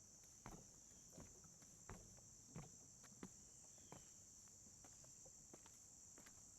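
Footsteps on the wooden deck of a suspension bridge, about one step every two-thirds of a second, growing fainter after about four seconds. Insects chirr steadily in the background.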